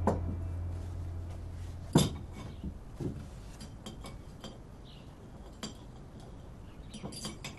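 China plates, a cup and metal cutlery clinking on a table as breakfast is set down and eaten: scattered light clinks, the loudest about two seconds in, with a quick cluster near the end.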